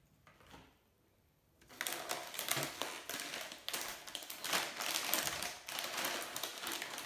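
Food packaging rustling and crackling as products are handled and taken out of an opened box. It starts about two seconds in as a dense, continuous crackle after a quiet start with a few light taps.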